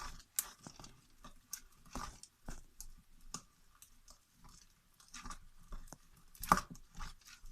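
A spoon stirring still-sticky slime in a bowl: irregular wet squelches and clicks, with one sharper knock about six and a half seconds in.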